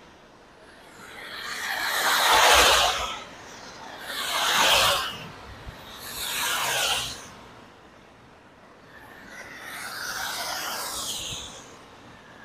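Cars passing one after another on a rain-soaked highway, their tyres hissing through standing water; about four passes swell up and fade, with the steady hiss of heavy rain between them.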